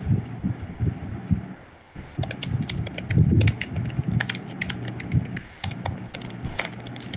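Typing on a computer keyboard: quick, irregular runs of key clicks, thickest from about two seconds in.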